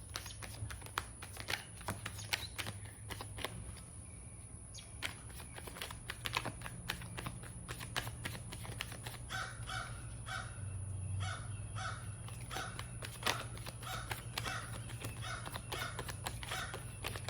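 Tarot cards being shuffled and handled, a run of light clicks and snaps. Through the second half a bird calls in a steady series of short notes, about one or two a second.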